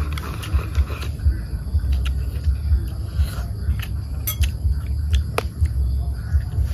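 Eating at the table: soup sipped from bowls near the start, then sharp clicks of chopsticks against porcelain bowls about four and five seconds in, over a steady low rumble of wind on the microphone.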